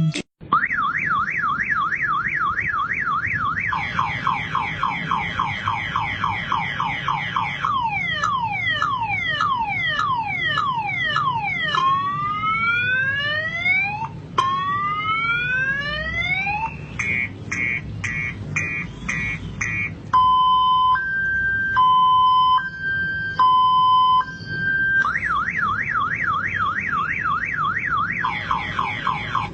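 Motorcycle security alarm siren cycling through its tone patterns. It starts with a fast up-down warble, then quick sweeps and slower rising whoops. Next come rapid chirps and a two-tone high-low beep, and it returns to the warble near the end.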